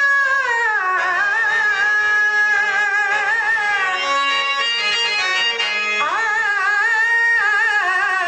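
A Kannada bhajan (devotional song) sung in a high voice with wavering, ornamented pitch, over harmonium accompaniment.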